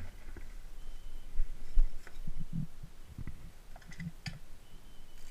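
Scattered light clicks and knocks of something being handled, with a few dull low thumps in between.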